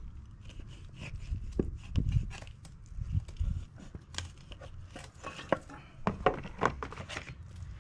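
Kitchen knife cutting through a whole opaleye next to the tail on a wooden cutting board. Irregular sharp knocks and crunches come as the blade chops through and taps the board, busiest in the second half.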